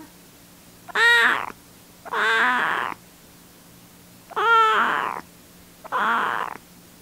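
Young kitten meowing four times in short, whining cries, each rising and falling in pitch.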